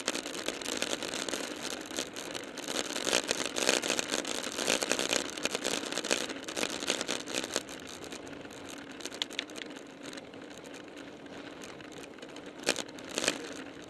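Wind buffeting and road noise on a ContourHD action camera's microphone as a road bike rolls along at about 25 mph. The gusty rush is loudest and most uneven in the first half, then settles to a steadier, quieter hiss, with a couple of short sharp gusts near the end.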